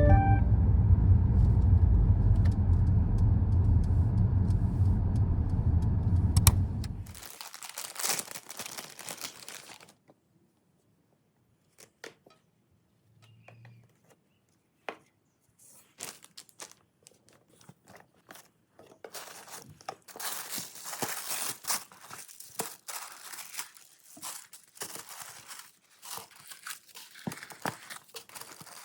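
A loud, low rumble cuts off abruptly about seven seconds in. After that come intermittent paper crinkling, rustling and tearing, typical of packaging or tissue paper being unwrapped during an unboxing.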